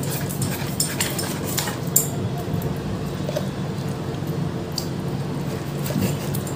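Kitchen utensils clicking and clinking against dishes: several sharp taps in the first two seconds, then a few fainter ones, over a steady low hum.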